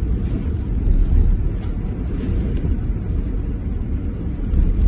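Low, steady rumble heard from inside a car in a strong sandstorm: wind buffeting the car mixed with the car's own running noise. It swells a little about a second in and again near the end.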